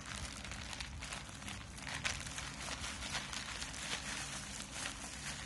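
Plastic courier mailer and bubble wrap crinkling and rustling in irregular bursts as hands pull them open. A steady low hum runs underneath.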